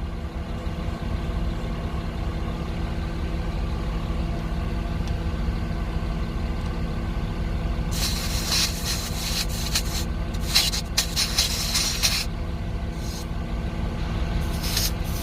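Steady motor hum with several bursts of hissing air at the tire valve, starting about halfway in. The portable compressor's hose fitting is not catching on the threads of a damaged valve stem, so air escapes.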